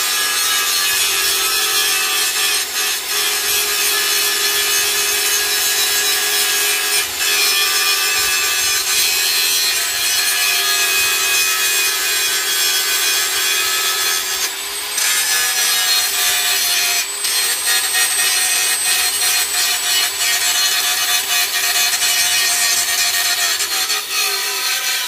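Angle grinder running against steel, grinding down a blob of weld left where the weld blew through. Its high whine holds loud and unbroken, dipping and recovering a little as the disc bites.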